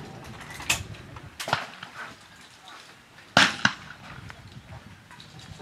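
A loud shotgun shot about three and a half seconds in, ringing out after the bang, with two fainter shots earlier on, about a second apart.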